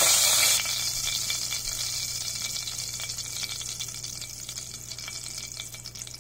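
Hot mustard oil sizzling and crackling with a pinch of asafoetida just tempered in it. It is loud at first, drops sharply about half a second in, then crackles more thinly and dies away gradually.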